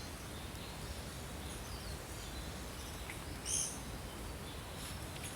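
A few faint, short high bird chirps over a steady low outdoor background noise, with the clearest call about three and a half seconds in.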